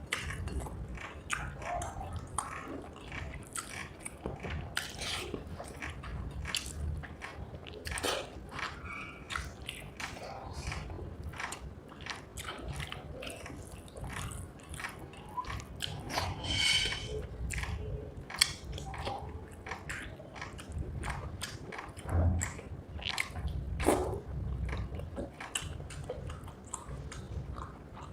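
Close-up eating sounds of rice with fried egg curry: steady wet chewing and mouth smacks with many small irregular clicks. About two-thirds of the way in there is a short hissing sound.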